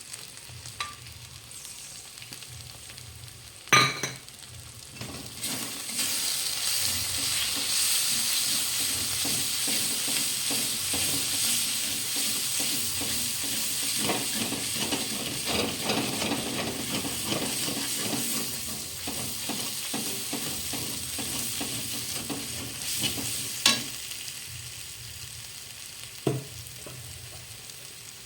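Chilli powder soaked in mustard oil sizzling and frying in a pan with the spices as it is stirred. The sizzle swells a few seconds in and eases near the end, with a few sharp knocks of the spoon on the pan.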